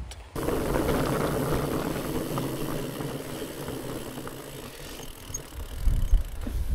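Fat bike riding over a rough track: tyres crackling on the ground and the bike rattling, easing off over a few seconds. Wind buffets the microphone near the end.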